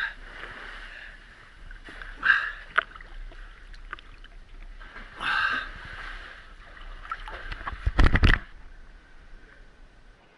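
Sea water sloshing and splashing right at a camera held at the surface, in short bursts about two and five seconds in. A louder splash with a low thump comes near the end.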